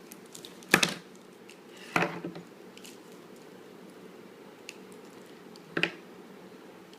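Metal padlock being handled and tapped: three sharp knocks, about a second in, two seconds in and near the end.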